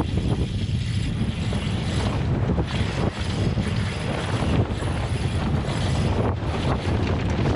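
Strong wind buffeting the microphone as a storm jib flaps loose while its halyard is hauled up by hand, with a few sharp cracks and rattles from the sail and rigging.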